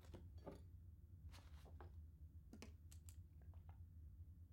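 Near silence: room tone with a steady low hum and a scattering of faint, short clicks.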